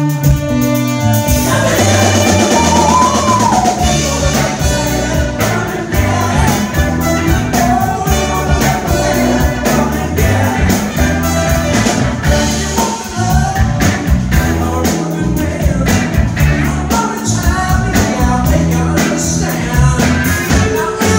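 Live soul band playing: electric guitar, bass guitar and drum kit, with a man singing lead over a steady beat.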